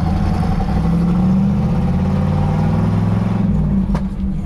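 Ford 460 big-block V8 of a 1985 F-250, straight-piped with true dual exhaust, no cats or mufflers, and 5-inch stacks, running loud under way, heard from inside the cab. The engine note rises a little, then falls away about three and a half seconds in, with a brief lull near the end.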